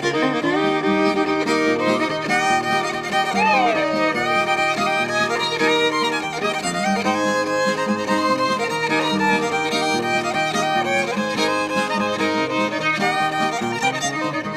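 A fiddle plays an instrumental break in a folk song, with sliding notes, over steady accompaniment.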